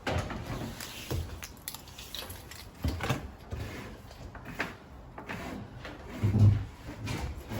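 Scattered knocks and thuds, with a louder low thud about six seconds in.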